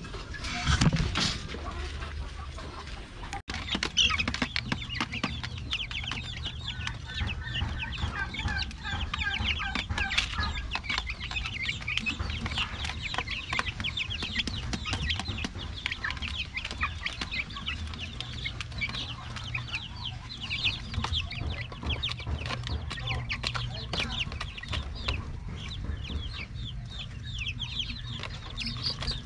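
A brief rattle of the wire cage door in the first seconds, then many young chicks peeping continuously: a dense run of short, high, downward-sliding cheeps.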